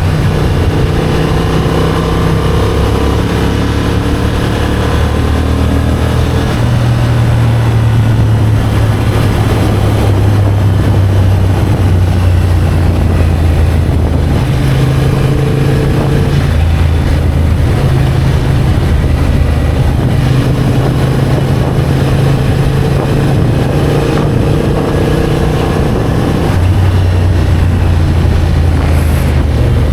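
Motorcycle engine running while riding, its pitch shifting up and down every few seconds with speed, over steady rushing wind noise.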